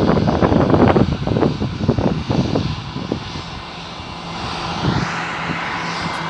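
Bombardier private jet's engines, loud, with a crackling low rumble that fades away after about three seconds. A steadier, quieter hiss with a low hum follows.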